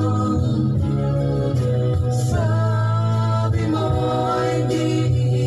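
Music: a song with a singing voice holding long, gliding notes over a steady bass accompaniment.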